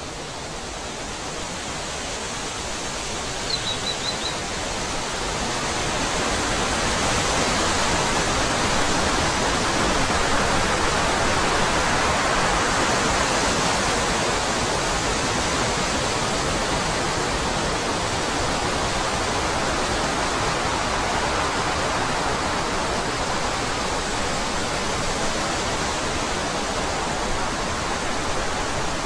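Wind blowing steadily, building over the first several seconds and then holding. A short run of four high chirps comes about four seconds in.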